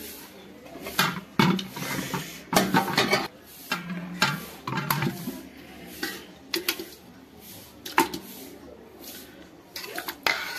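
A spoon clinking, knocking and scraping against cooking pots in a series of irregular strokes as cooked chicken pieces are spooned into a large biryani pot.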